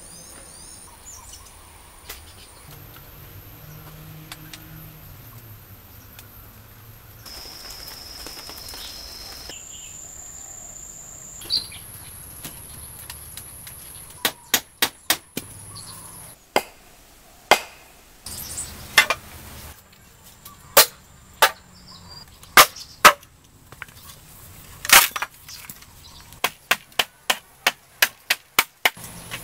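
Sharp knocks of a hand tool striking split bamboo, in irregular runs with a quick series near the end, likely breaking the nodes to flatten culms into boards. For the first ten seconds or so only a steady high insect drone is heard.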